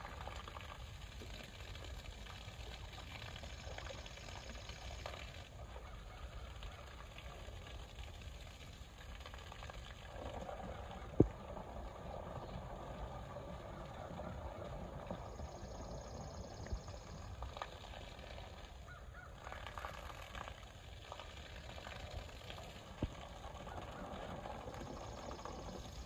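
Water splashing and a steady pour of falling water as a Syrian brown bear bathes in a pond under a small waterfall, the splashing swelling now and then. A single sharp knock about halfway through is the loudest sound, with a couple of fainter clicks later.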